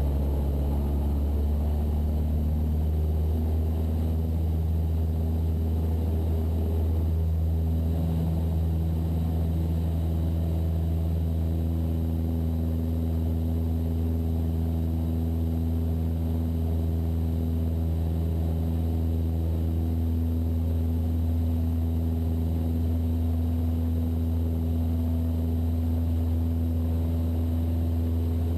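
Cessna 172's piston engine and propeller running steadily: a deep, even drone whose pitch shifts a few times, with little sound above the low range.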